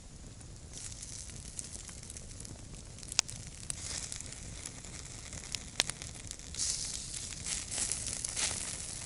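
Campfire crackling with two sharp pops, and fat from pork salo held over the embers dripping and hissing on the coals; the hissing swells for a couple of seconds near the end.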